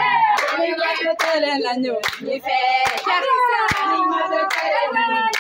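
A group of women singing together while clapping their hands on a steady beat, with sharp claps a little more often than once a second.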